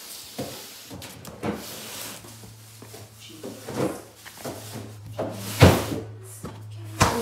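A large cardboard box being handled and turned on a tile floor: scraping, rubbing and knocks on the cardboard, with the loudest thumps about five and a half seconds in and near the end.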